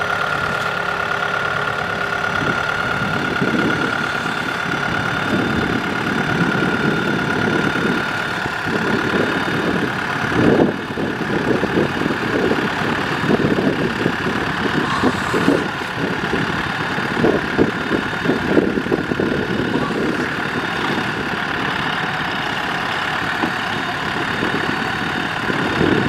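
Kubota M6040SU tractor's diesel engine running, its note swelling and dipping unevenly rather than holding a steady idle.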